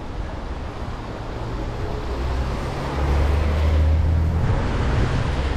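Car driving on a wet road: steady tyre hiss over a low engine and road hum, which swells louder about three seconds in.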